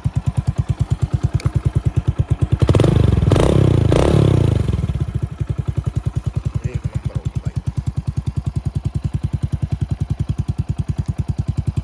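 Hero Splendor single-cylinder four-stroke motorcycle engine idling with an even exhaust beat from its silencer. About three seconds in it is revved briefly, louder for roughly two seconds, then drops back to idle.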